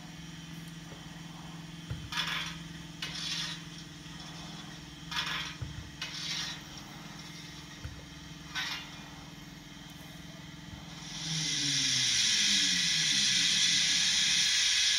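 ADM model railway turntable's drive motor humming steadily as the deck turns, then sliding down in pitch and stopping near the end. Short hissing bursts from the sound-fitted steam locomotive's DCC decoder come through during the turn, and a louder steady steam hiss starts about eleven seconds in.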